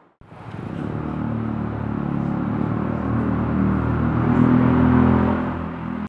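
A motor vehicle's engine running with a steady low hum that grows louder, then stops abruptly at the end.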